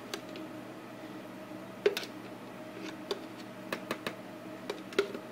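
Metal spoon clicking and tapping against a plastic tub while dressing is scooped into potato salad: a scattering of sharp ticks, the loudest about two seconds in and a quick cluster near the end, over a steady low hum.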